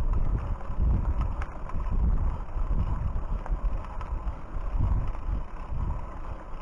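Wind buffeting the microphone in uneven gusts, a heavy low rumble that swells and drops every second or so.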